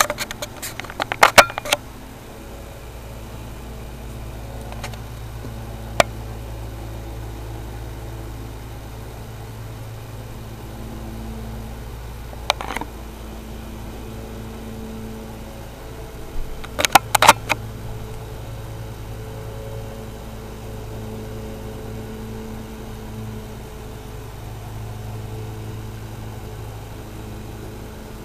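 A steady low mechanical hum, with a few sharp clicks near the start, twice in the middle and in a quick cluster about two-thirds of the way through.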